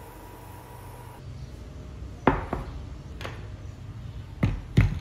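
Dishes set down on a tabletop: a glass mug and a bowl knocking against the table. There are five sharp knocks in the second half, and the last one, near the end, is the loudest.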